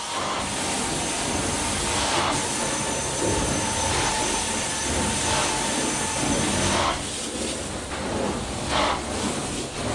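Carpet-cleaning extractor's vacuum hose and wand running: a steady rushing suction with a faint whine, shifting in tone a few times.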